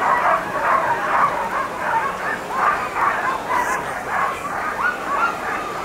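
A team of harnessed sled dogs barking and yipping together: many short, overlapping yelps, the excited clamour of dogs eager to run at the start line.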